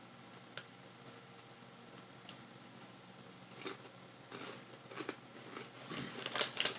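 Crisp snack chips crunching between the teeth in a few sharp bites, then a plastic chip bag crinkling loudly near the end as a hand goes into it.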